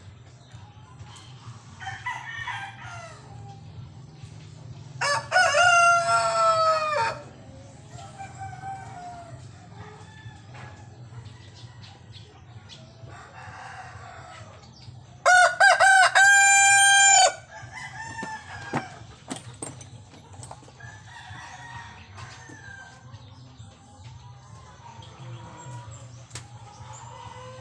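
Rhode Island Red rooster crowing twice, each crow a loud drawn-out call of about two seconds, the second opening with a few short broken notes. Quieter chicken clucks and calls come in between.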